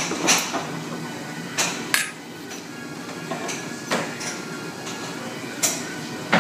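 Sharp clinks of metal tongs and dishes at a hot pot table, about five in all, over restaurant background music.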